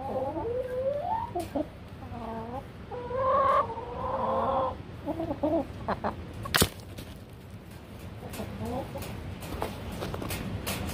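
Hen clucking and making drawn-out calls over the first five seconds, loudest a few seconds in, then softer calls near the end. A single sharp click about six and a half seconds in.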